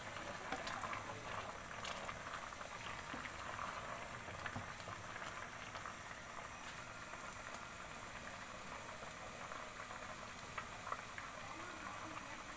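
Sliced carrots boiling in water in a kadhai on the stove: a steady, faint bubbling with fine crackles.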